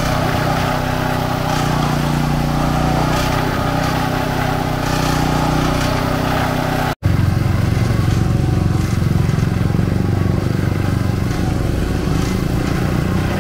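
Motorised sugarcane press running steadily as its rollers crush cane stalks. About halfway through the sound drops out for an instant and comes back lower and rougher.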